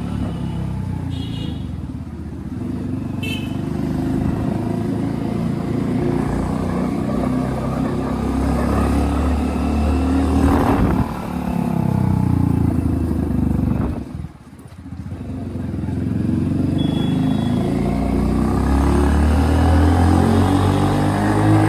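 Single-cylinder engine of a modified Hero Splendor motorcycle running through a loud aftermarket RX-style silencer while riding, the revs rising and falling. About halfway through the revs drop away with the throttle closed, then build up again.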